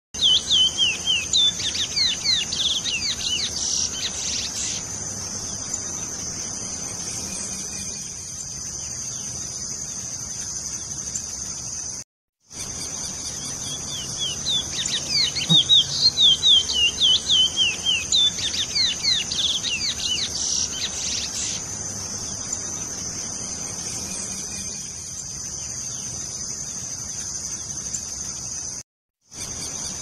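Male chestnut-bellied seed finch singing two bursts of rapid, quickly sliding whistled notes, one at the start and a longer one from about fourteen to twenty-two seconds. A steady high insect drone runs throughout, and the sound cuts out briefly twice.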